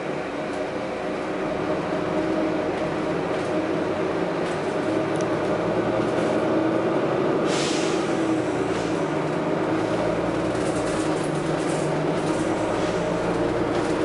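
Volvo B9TL double-decker bus running under way, its diesel engine and drivetrain giving a steady drone with a whine that builds slightly over the first couple of seconds. A short hiss of air about seven and a half seconds in.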